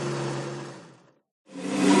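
Formula 1 car engine heard from the driver's seat, holding a steady pitch and then fading out about a second in. After a brief silence, another run of the engine starts near the end and swells up quickly.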